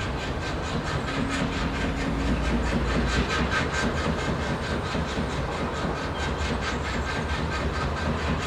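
Industrial machinery running with a steady, fast rhythmic clatter over a continuous low rumble of city background noise.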